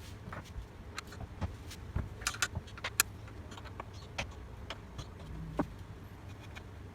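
Scattered metallic clicks and clinks of hand tools on the bolts and metal parts of a cylinder lawn mower being unbolted, irregular, with the sharpest clink about three seconds in.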